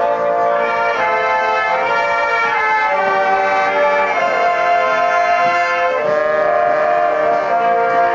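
Marching band brass section (trumpets and larger bell-front horns) playing a tune in full held chords, the notes changing together about once a second.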